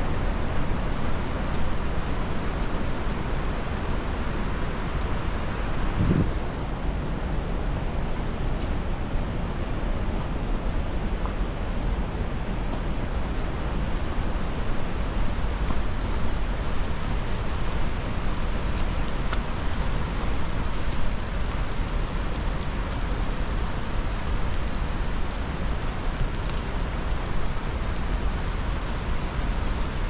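Car driving: a steady rush of road and engine noise, heaviest in the low end. A short low hum about six seconds in.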